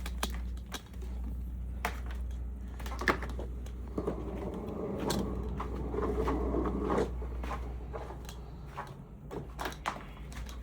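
Scattered clicks and knocks of things being handled, with a patch of rustling in the middle, over a low steady hum that fades out about eight seconds in.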